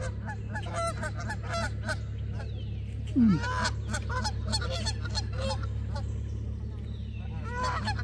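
A flock of Canada geese honking, many short calls overlapping in quick succession. A louder, low sliding sound about three seconds in, with a steady low hum underneath.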